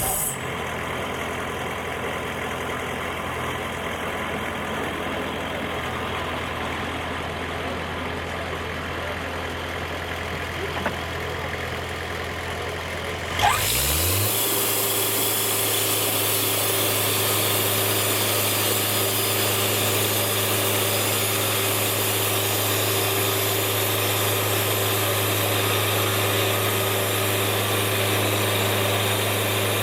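Sawmill engine running at a steady low speed, then revving up about halfway through and holding steady at a higher speed.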